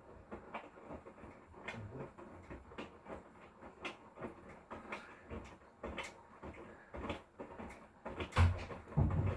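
Hotpoint Core washing machine drum tumbling a wash load: irregular soft knocks and swishing, with two heavier thuds near the end.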